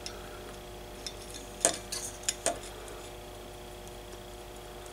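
A few light metal-and-glass clicks and clinks, about four in a second near the middle, from a hand handling a 3-500Z transmitting tube and its pin terminals in the socket, over a faint steady hum.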